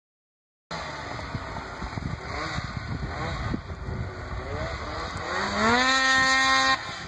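Arctic Cat Firecat 600 snowmobile's two-stroke twin engine revving, its pitch rising and falling in a few surges. About five seconds in it climbs to a loud, high, steady drone that cuts off sharply near the end.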